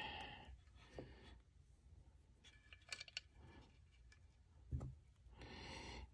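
Near silence with faint clicks and rubbing as a small Allen wrench and brass screws are handled and threaded into a rifle forend, with a soft knock a little before the end.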